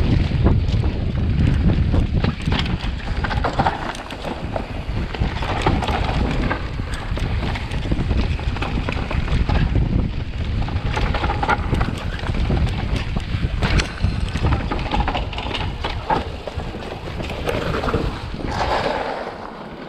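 Mountain bike descending a dirt trail: wind buffeting a bike-mounted camera's microphone over the rumble of the tyres on the ground, with frequent clicks and rattles from the bike.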